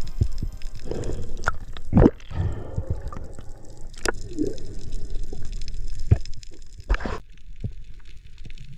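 Underwater sound through a diver's camera housing: a low water rumble with irregular clicks and knocks and short bubbly gurgles, as a speared fish is handled on the spear and line.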